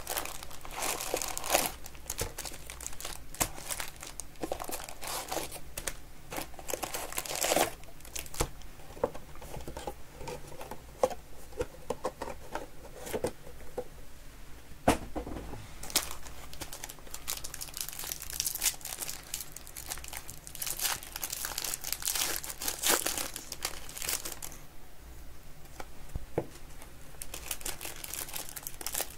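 A box of 2023 Score football cards being torn open and its wrapped card packs handled, ending with a pack being torn open: continuous crinkling of pack wrappers and tearing, with scattered sharp clicks and rustles.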